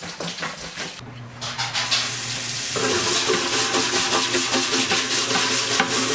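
Aerosol spray paint can hissing in a steady spray, growing louder about three seconds in.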